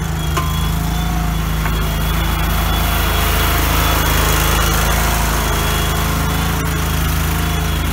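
Kohler 25 hp twin-cylinder gas engine of an Allmand TLB-25 mini backhoe running steadily at working speed, with a faint high whine over it.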